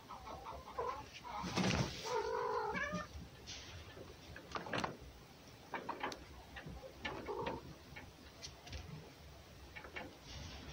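Red fox and domestic cat at close-contact play: a loud, drawn-out cry from about one and a half to three seconds in, then several short, sharp calls scattered through the rest.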